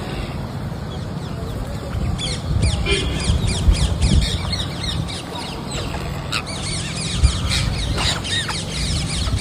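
Parrots calling in a rapid chatter of short, falling squawks, starting about two seconds in, over a steady low rumble.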